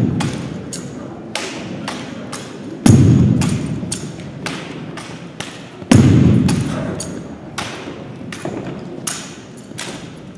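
Exhibition rifle drill: three heavy thumps about three seconds apart, each echoing and dying away through a large gym, with lighter sharp slaps and taps of hands and rifle in between.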